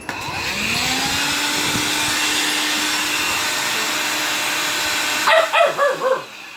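Vacuum cleaner switched on, its motor hum rising as it spins up and then running steadily for about five seconds. It cuts off, and a Jindo dog barks about five times in quick succession.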